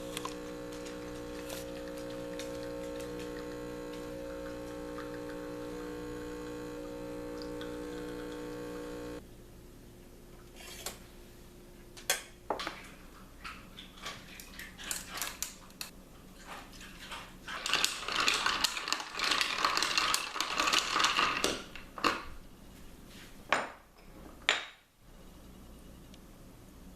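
Making an iced coffee: a small kitchen appliance hums steadily and stops about nine seconds in. Then glassware and utensils clink and knock, with a dense stretch of rattling clatter about eighteen to twenty-two seconds in.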